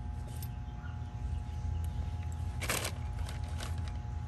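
A brief rustle from test leads and wiring being handled, a little past halfway, over a steady low background hum.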